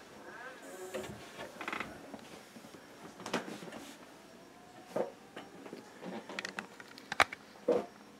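Faint handling noise: scattered clicks, knocks and rustles, with a sharp click about five seconds in and a few more near the end, over a faint steady hum.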